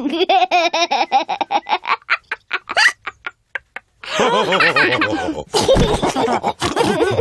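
Cartoon pig characters laughing: a quick run of laughs, a few short scattered sounds and a brief lull around three seconds in, then several voices laughing together from about four seconds in.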